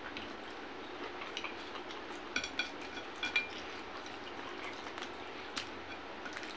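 Quiet eating by hand from a plate: soft handling of food and a few light clicks and taps on the plate between about two and three and a half seconds in, over a steady low hiss.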